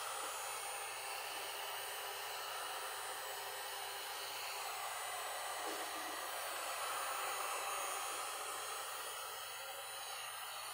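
Electric heat gun blowing steadily, a constant rushing hiss of fan and hot air, as it is swept over freshly poured resin to pop the surface bubbles.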